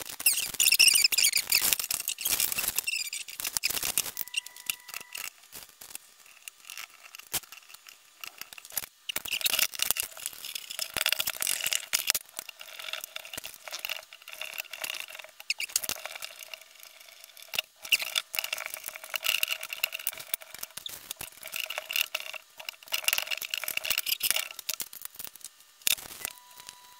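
Hand screwdriver driving screws into the metal fittings of a freebord's wheel and binding plates: squeaking and scraping in stretches of a few seconds, with small clicks and taps between.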